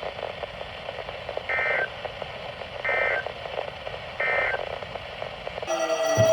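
Emergency Alert System end-of-message signal on a weather-radio broadcast: three short two-tone data bursts, about a second and a half apart, over steady radio hiss, marking the end of the alert. Near the end a louder signal with several steady tones starts.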